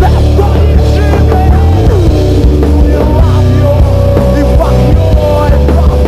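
A rock band playing loud and continuously, with electric guitars, bass and drum kit.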